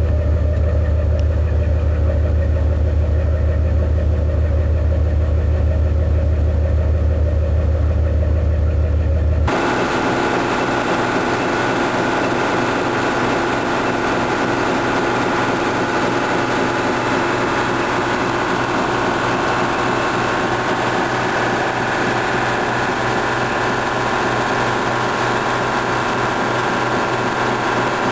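A 1950 Fairbanks-Morse marine diesel engine running steadily. At first a deep steady hum dominates. About ten seconds in, the sound changes abruptly to a brighter, busier mechanical running sound with much less low hum, which holds steady.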